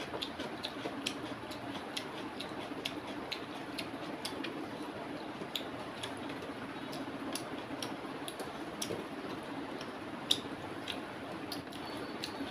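Fingers mixing rice and curry on a metal plate: soft wet squishing with many small, irregular clicks, one louder click about ten seconds in, over a steady low background hum.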